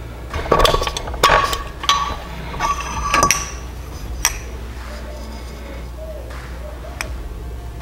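Metal engine parts clinking and tapping together with a short ring as the small engine is stripped: the connecting rod cap comes off and the piston and rod slide out of the aluminium block. A quick run of clinks and knocks in the first three seconds or so, then single clicks about four and seven seconds in.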